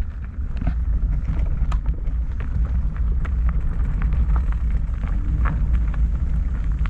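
A fat bike rolling along, with a steady low rumble of wind on the microphone and tyre noise, and scattered sharp clicks and knocks from the bike and the surface under its tyres.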